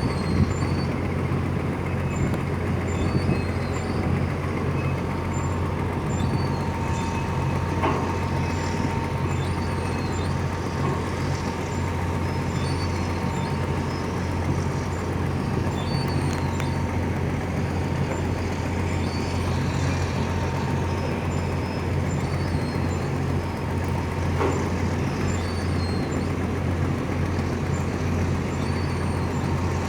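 Tugboat diesel engines running with a steady low drone, with a thin steady tone above it.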